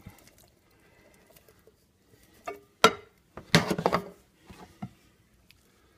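A couple of quiet seconds, then a few sharp knocks and a short clatter of kitchenware: the emptied tin can of corn and utensils being handled against a ceramic baking dish and the counter.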